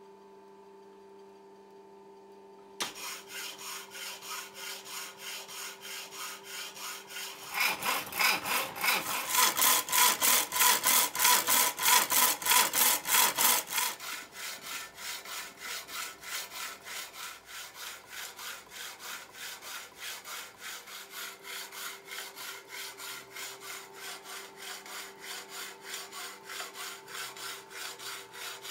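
Restored vintage power hacksaw cutting a square steel tube: a faint steady motor hum, then about three seconds in the reciprocating blade starts rasping through the metal in a steady rhythm of strokes. The strokes are loudest for several seconds in the middle.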